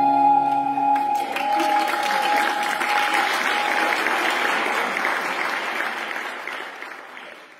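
A women's choir's final held chord ends about a second in, and audience applause takes over, fading out near the end.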